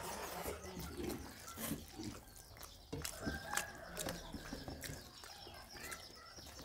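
Eating with the hands: fingers mixing rice and shrimp curry on steel plates, with chewing and lip smacks heard as a run of short, irregular clicks.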